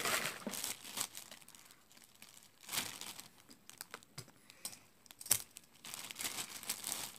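Clear plastic packaging bag crinkling in irregular bursts as a squishy toy is pulled out of it, with one sharp snap about five seconds in.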